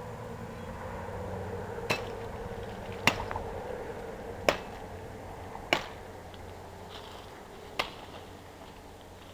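Machete chopping into a living tree branch overhead: five sharp hacks, spaced a second or two apart, the blade biting into green wood to cut a Y-shaped fork free.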